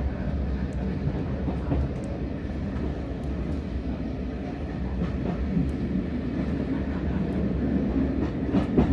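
Steam-hauled heritage passenger train running, heard from inside the carriage: a steady low rumble of the wheels on the track, with occasional faint light clicks.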